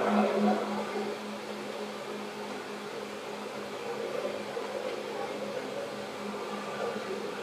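Onboard sound of a Seibu 2000 series electric train: a steady hum and rumble inside the car. A low pulsing hum fades out about a second in, leaving an even, quieter drone.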